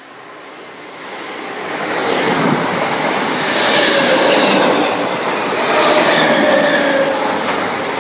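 Class 325 Royal Mail electric multiple unit approaching and running through the station at speed. The noise builds over the first two seconds to a loud, steady clatter of wheels on rail, with some steady high tones on top.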